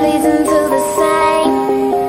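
Background music: a bright, light melody of held notes changing every fraction of a second.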